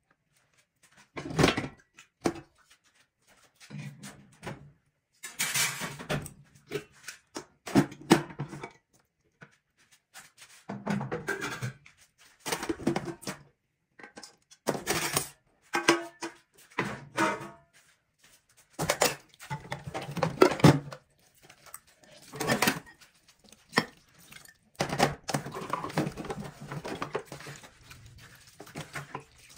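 Dishes being washed by hand in a stainless steel sink: steel pots and pans knocking and clattering, with cloth scrubbing between. The sounds come in separate bursts with short pauses.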